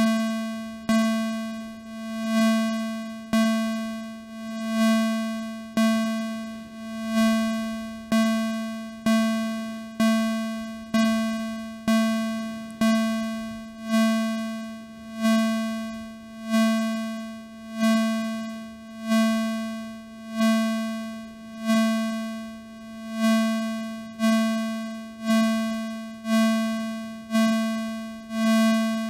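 Modular synthesizer note on one steady pitch, played over and over by a Make Noise Maths envelope about once every second or so. Each note swells in and dies away, and the swell's length shifts from note to note as an LFO modulates the envelope's rise time.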